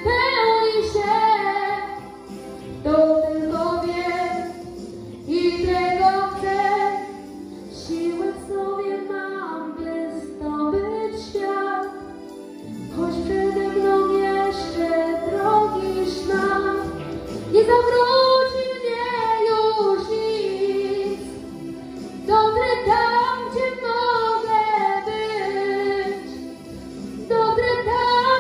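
A boy singing a Polish-language pop song into a handheld microphone in sustained, gliding phrases over an instrumental backing track.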